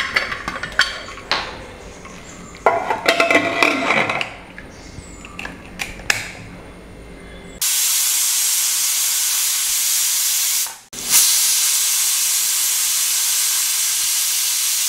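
Metal clinks and clatter, then a Hawkins pressure cooker's weighted valve whistling: a loud steady jet of steam hiss that breaks off for a moment and starts again, the two whistles that mark the jackfruit cooked under pressure.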